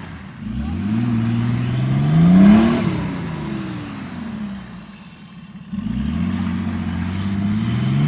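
Nissan Patrol's engine revving hard: the pitch climbs for about two seconds, falls back and eases off, then rises again about six seconds in and holds high.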